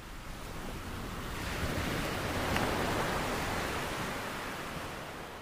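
A single swell of ocean surf: a noisy wash that builds to a peak about two and a half seconds in, then slowly recedes.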